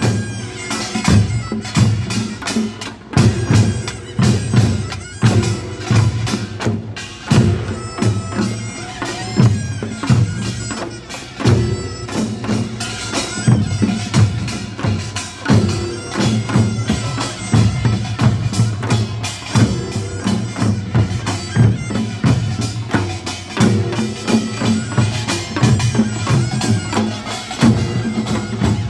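Korean nongak farmers' band playing: a reedy taepyeongso shawm melody over rapid, dense kkwaenggwari gong strokes and pulsing drum beats.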